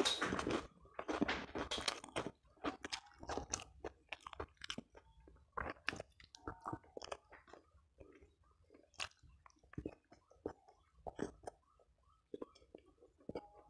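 A person chewing food close to a clip-on microphone: loud crunching bites in the first two or three seconds, then quieter chewing with scattered mouth clicks and smacks.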